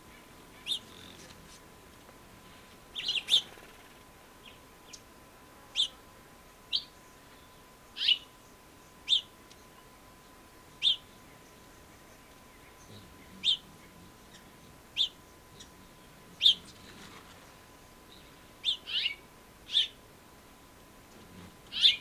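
A small songbird giving short, sharp chirps, singly or in quick pairs, about every one to two seconds.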